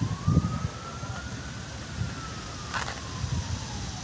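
Faint emergency-vehicle siren in a slow wail, its pitch rising for about two seconds and then falling, over a low rumbling noise.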